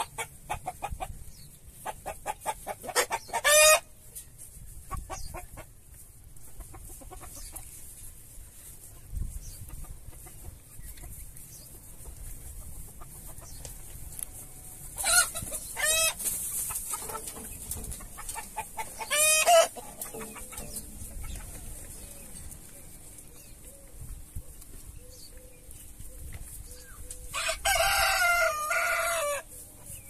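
Rooster crowing several times, with hens clucking in between; the longest crow, about two seconds, comes near the end.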